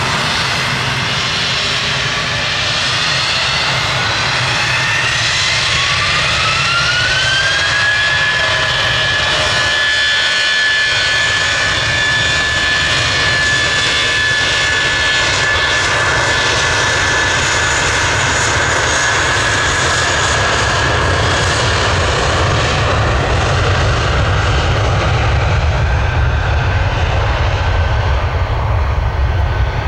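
Airbus A320's IAE V2500 turbofan engines spooling up for takeoff: a whine rises in pitch about six to eight seconds in, then holds as a steady high whine. A low jet rumble builds toward the end as the aircraft rolls down the runway away from the listener.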